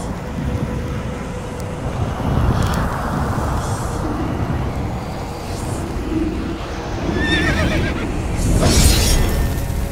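Horse whinny sound effect: a wavering neigh about seven seconds in, over a low rumble. A loud burst of noise follows about a second later.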